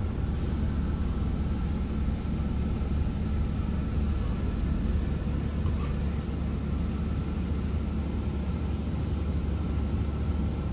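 Steady low rumble inside a car's cabin while an automatic car wash machine wets the car down before soaping.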